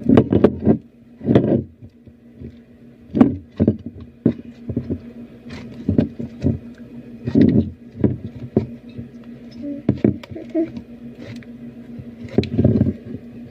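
Irregular knocks, taps and scrapes of objects being handled, with a steady low hum underneath.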